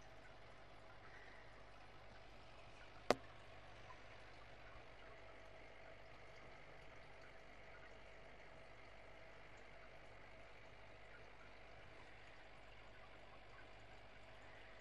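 Aquarium filter running faintly: a steady hum with a light trickle of water. A single sharp click comes about three seconds in.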